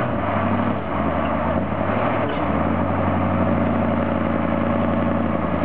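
Engine of a heavy Ural 6x6 trial truck running steadily under load as it crawls up a sandy bank, its pitch shifting a little a couple of times.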